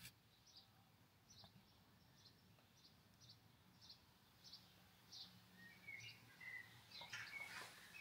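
Faint bird chirping: a run of short, high chirps at about two a second, with a few lower, busier calls near the end.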